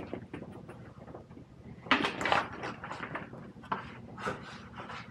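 Hand tools being handled and knocked against the top of a stepladder: a string of irregular clicks and clatters, loudest about two seconds in and again about four seconds in, over a steady low hum.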